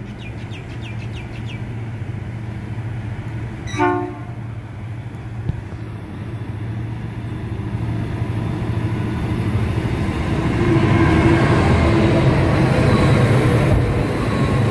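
Pacific National 82 and 81 class diesel-electric locomotives hauling a coal train past, their engines droning low and steadily and growing louder as the lead units come by. About four seconds in there is a single short horn toot.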